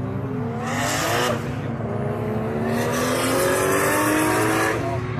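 Drift car's engine revving hard at full throttle, its pitch climbing in two long pulls and dropping near the end, with tyre squeal as the car slides sideways.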